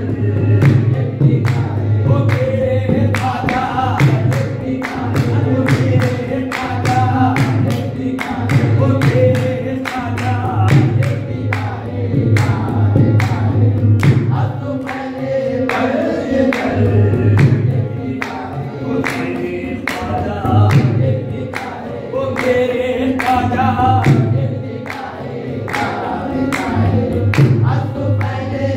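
Qawwali sung by a group of male voices in unison, with rhythmic hand clapping keeping time and a harmonium underneath.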